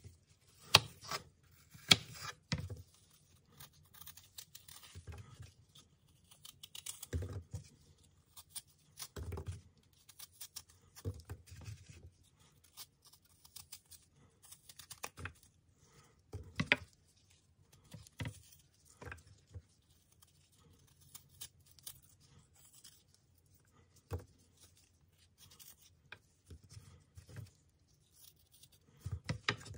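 Knife cutting wedges from a peeled apple over a wooden cutting board: irregular crisp cuts and light knocks, with quiet gaps between them.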